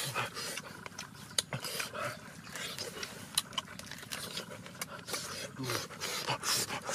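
Hands tearing apart roasted meat laid on leaves: a run of irregular small cracks, crackles and rubbing as the meat and charred skin are pulled apart and the leaves crinkle.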